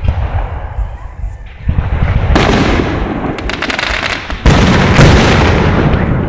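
Aerial firework shells bursting: a series of booms, the loudest about four and a half seconds in, with crackling between them.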